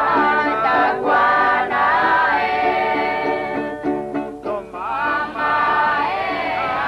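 Music with voices singing, dipping briefly about four and a half seconds in before the singing resumes.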